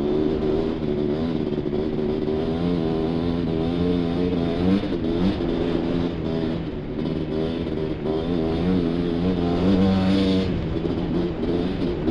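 Sport quad's two-stroke engine (a Suzuki LT500R Quadzilla) running hard at speed, its pitch rising and falling as the throttle is worked, with wind rumble on the helmet camera.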